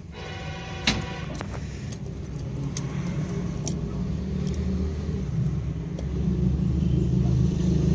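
A motor vehicle's engine running, its low rumble growing gradually louder, with a brief tone near the start and scattered light metallic clicks and clinks.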